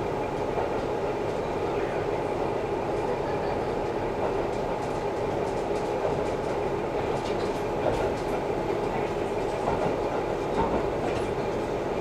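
Interior running sound of a KiHa 11 diesel railcar under way: steady engine and wheel noise, with a few light rail-joint clicks in the second half.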